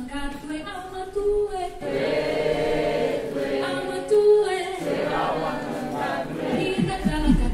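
A group of people singing together without instruments, the voices thickening about two seconds in. A few low beats come in near the end.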